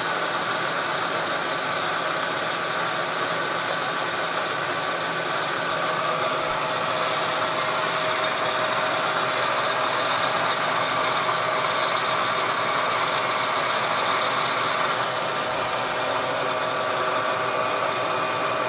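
Bridgeport milling machine running steadily, its spindle turning a homemade ductile cast-iron fly cutter at about 450 RPM while the power feed slowly advances the table. The cutter has not yet reached the aluminium case, so there is no cutting sound, only a steady machine hum with a faint steady whine.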